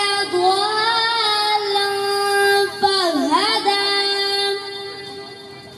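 A boy singing a naat solo with no instruments, holding long drawn-out notes with a wavering melisma about three seconds in. The voice trails off near the end.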